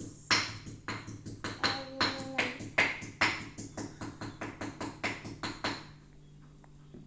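A pet lapping up a drink: a quick, even run of wet clicks, about four a second, that stops about six seconds in, over a steady low hum.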